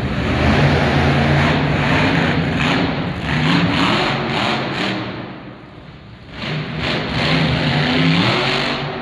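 Monster truck engine revving hard, easing off about five seconds in, then revving up again with a rising pitch near the end.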